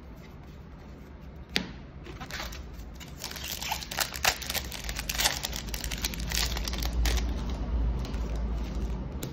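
Foil Magic: The Gathering booster pack wrapper being torn open and crumpled, a dense crackling crinkle from about three seconds in, after a single sharp snap about a second and a half in.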